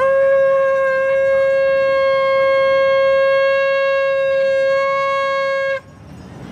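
A single steady, reedy note blown on a makeshift reed, a flat strip held between the hands at the lips. It holds at one pitch for about six seconds, then cuts off sharply.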